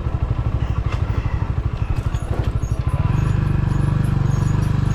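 Rusi Classic motorcycle engine running under way, a fast, even low pulsing; about three seconds in the engine note becomes louder and steadier.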